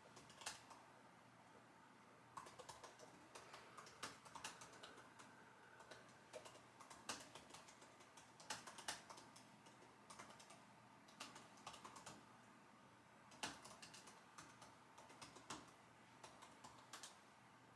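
Computer keyboard typing: quiet, irregular runs of keystroke clicks broken by short pauses.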